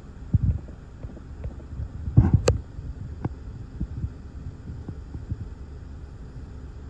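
Gusty thunderstorm outflow wind buffeting the microphone inside a car: a steady low rumble broken by heavy low thumps. The loudest is a cluster about two seconds in that ends in a sharp tap, with a few lighter ticks after it.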